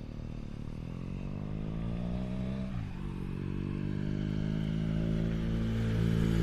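BMW R1200GS boxer-twin engine running through a Chinese aftermarket exhaust. The revs climb for nearly three seconds, drop suddenly, then hold and slowly rise again as the sound grows louder.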